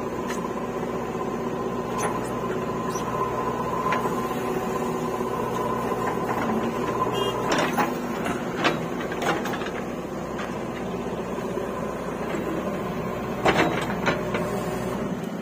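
Diesel engine of a JCB 3DX backhoe loader running steadily while it digs, with a handful of sharp knocks from the bucket and clods of mud, a cluster about halfway through as the load is dumped into the trolley and the loudest near the end.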